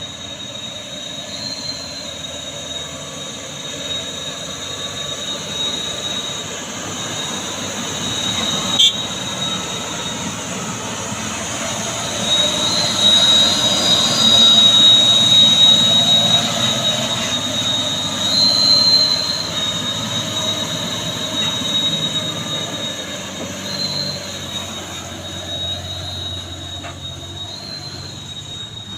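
Container truck with a steady, high-pitched squeal running over its engine rumble, swelling louder through the middle before easing off: the strange noise the truck makes on the steep climb.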